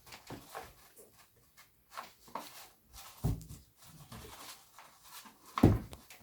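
Scattered knocks and clicks of objects being handled on a hard surface, with one louder thump about five and a half seconds in.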